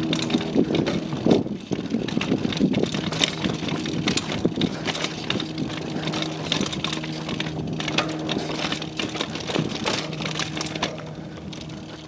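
Downhill mountain bike rattling and clattering as it rolls fast over rocks and roots, with a steady low hum underneath.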